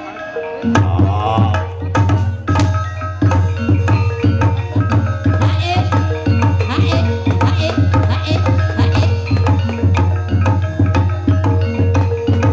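Javanese gamelan music accompanying an ebeg horse dance: kendang hand drums beat a quick, busy rhythm over ringing pitched keyed percussion and a steady low boom. It gets louder about half a second in.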